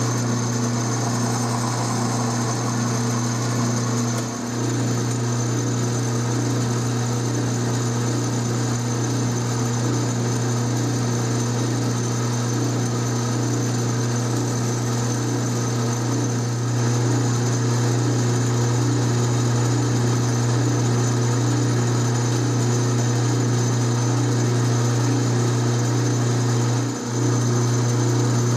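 12-inch Atlas metal lathe running steadily with a constant hum, its spindle turning a short steel set screw in a collet while it is faced down to length.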